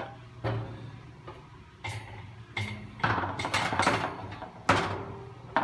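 Clunks, knocks and rattling of a painted metal motor crossbar and clear plastic lid being set down and shifted on the rim of a stainless steel honey extractor drum, as it is worked into line with the drive so that it will seat. The busiest rattling comes about three to four seconds in.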